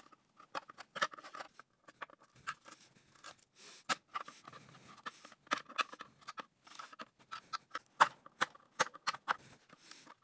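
Screwdriver scraping and prying stuck foam padding off the bottom of a plastic battery tray, with irregular short scratches and crackles of the foam tearing loose.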